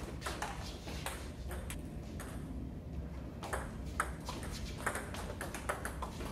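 Table tennis rally: the celluloid-type ball clicks sharply off the players' bats and bounces on the Donic table, a quick irregular run of about two clicks a second.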